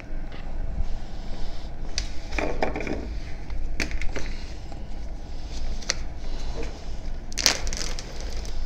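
Handling noises as the screw cap of a plastic jerry can is twisted off and a plastic zip-lock bag of flake potassium hydroxide is picked up: a handful of sharp clicks and a short stretch of plastic rustling, over a low steady hum.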